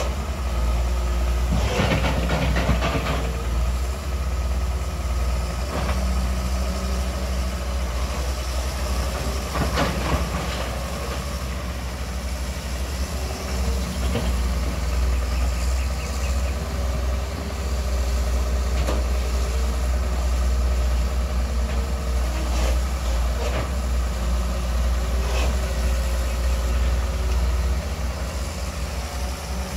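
Long-reach excavator's diesel engine running steadily, with a few sharp knocks, the biggest about two seconds in and around ten seconds in.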